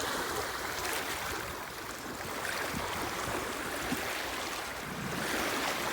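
Waves washing on the shore: a steady rush of water that swells near the end.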